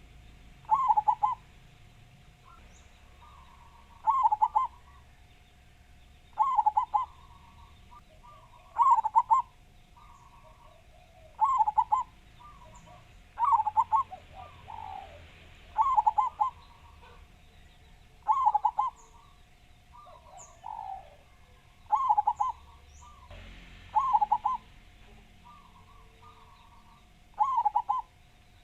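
Zebra dove (perkutut) cooing over and over, each call a loud burst of quick staccato notes, about one every two and a half seconds. A fainter call comes twice between them, small birds chirp high and thin, and a faint steady hum lies underneath.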